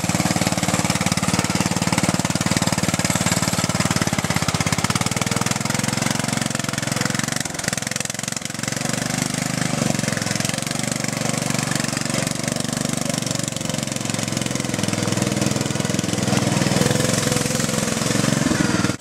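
Off-road Craftsman LT1000 riding mower's Briggs & Stratton I/C 16.5 HP engine running steadily as the mower drives through a mud hole, dipping briefly about eight seconds in.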